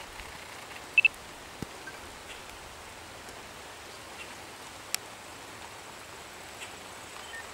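Steady outdoor hiss, with a quick high double chirp about a second in and a few faint clicks.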